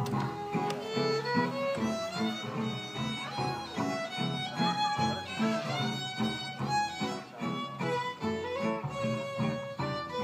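A small acoustic band playing: a violin carries a sliding, ornamented melody over acoustic guitar and double bass keeping a steady pulse.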